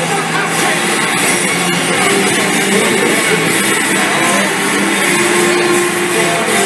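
Music over a football stadium's PA system, heard among the noise of a big crowd.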